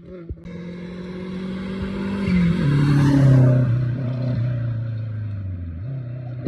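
Rally car engine running hard as the car approaches and passes close by. It is loudest about three seconds in, and its note drops as it goes past, then it pulls away.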